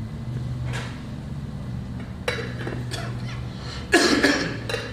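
Metal lid of a silver communion plate being lifted off and handled, clinking and clattering loudest about four seconds in, after a few lighter clicks, over a steady low hum.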